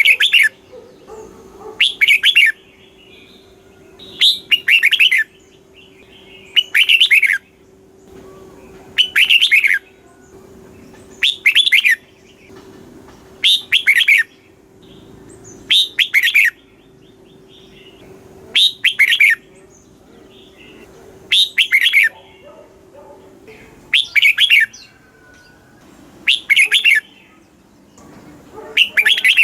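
Red-whiskered bulbul singing: short, loud, whistled song phrases repeated about every two seconds, many of them given as a quick double.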